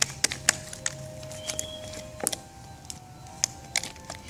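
Jelly slime, set firm in the freezer, being squeezed and pressed by hand, giving a dozen or so sharp, irregular clicks and pops.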